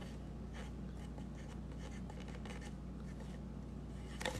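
Blue Sharpie marker writing on the side of a red plastic solo cup: soft, scratchy pen strokes over a steady low hum, with a few sharp taps near the end.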